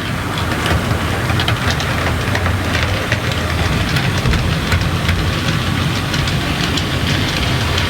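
A train running on rails: a steady rumble with many scattered clicks of wheels over the track.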